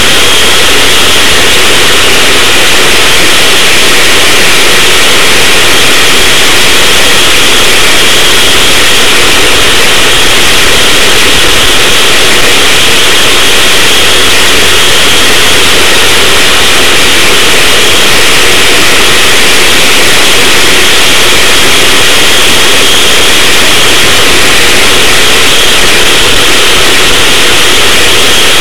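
Go-kart engine running steadily at speed, heard through an overloaded onboard camera microphone: very loud and distorted, with little change in level.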